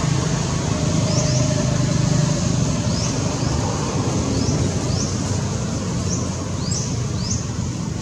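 Outdoor ambience: a low vehicle rumble that eases after about two seconds, with a bird repeating short, high, rising chirps roughly once or twice a second, more often near the end.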